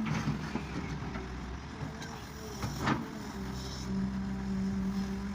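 Farm tractor engine running steadily, with a sharp knock or clatter near the start and another about three seconds in.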